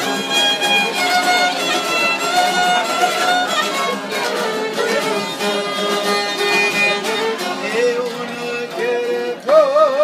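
Albanian folk music: a violin plays the melody over a strummed long-necked lute in an instrumental passage. Near the end a man's voice comes in singing with a wavering pitch.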